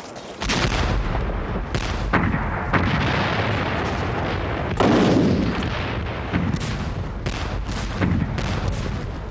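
Artillery fire in battle: a run of heavy gun blasts with long rumbling tails, starting suddenly about half a second in, the loudest about five seconds in, with sharper gunshots between.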